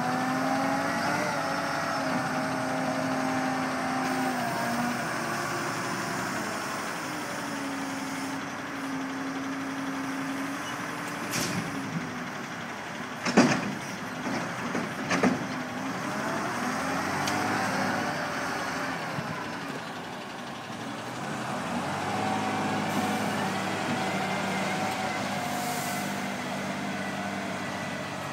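Diesel engine of an O&K L25 wheel loader revving up and down in repeated cycles as it works. A few sharp knocks sound about halfway through.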